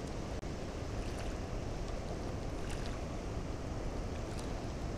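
Steady rushing noise of a fast river current below a dam, with wind on the microphone.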